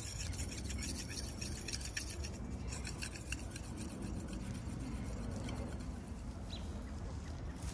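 A black Arkansas sharpening stone rubbed by hand along a steel axe edge: a faint run of quick, light scraping strokes, busiest in the first half. This is the fine honing stage that follows the hard Arkansas stone, refining the burr on the edge.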